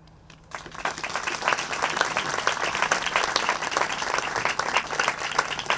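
Crowd applauding, breaking out about half a second in and going on as dense, steady clapping.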